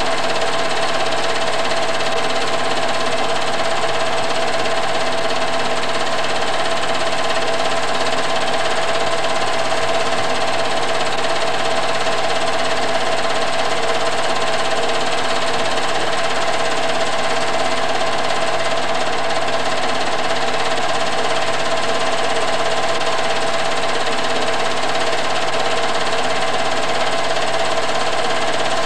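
Home-movie film projector running steadily with an even mechanical whir.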